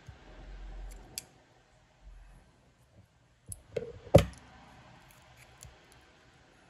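Pliers clicking against the bent diecast metal base of a model truck as it is levered straight, with faint handling rumble early and one loud sharp click about four seconds in.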